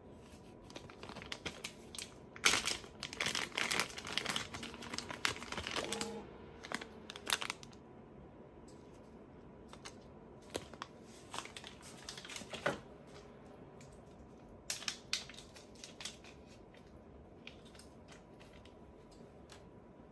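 Thin plastic zip-lock bags crinkling and rustling as they are handled and opened, in a dense spell of crackling about two to seven seconds in, then scattered lighter crinkles and clicks.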